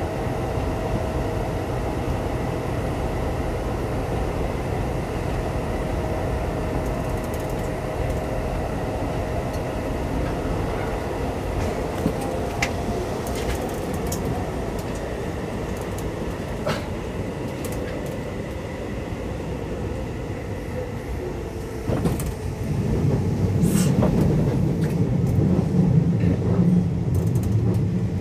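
Keisei 3500 series commuter electric train running, heard from inside the car: a steady rumble of wheels and running gear, with a thin steady tone that fades in the first third. About two-thirds of the way in there is a sharp clunk, and after it the low rumble grows louder and heavier.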